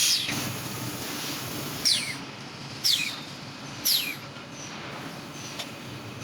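Steel grating welding machine working: four sudden strokes, the last three about a second apart, each with a short falling squeal, over a steady low hum.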